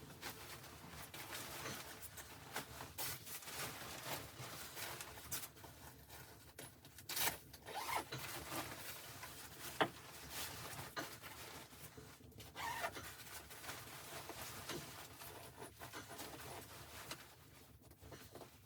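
Close rustling and handling of gear, with scratchy rubbing and zipper-like runs, scattered small clicks and one sharp click about ten seconds in.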